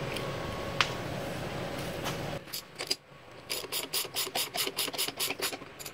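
Hand ratchet clicking in quick, even strokes, about six a second, as it runs the pinion nut down on a Dana 30 front differential's pinion shaft. The clicks start about halfway through.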